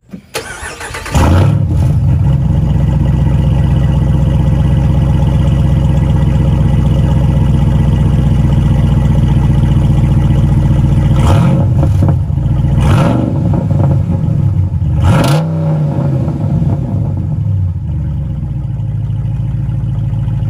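Jeep Wrangler Rubicon 392's 6.4-litre HEMI V8 heard through a straight-piped exhaust with an X-pipe, dumped before the rear axle. It fires up about a second in and idles with a loud, lumpy note. It is blipped three times in the middle, with a short rev each time, then settles back to idle.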